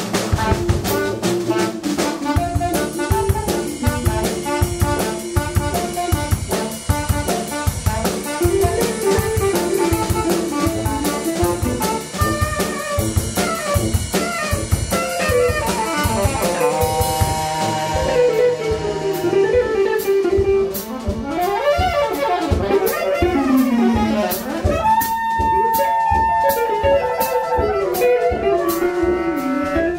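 Live jazz quartet of tenor saxophone, electric guitar, tuba and drum kit playing an instrumental tune to a steady beat, the saxophone and tuba carrying moving melodic lines over the drums. The cymbal wash thins out about halfway through, and long held notes come in the second half.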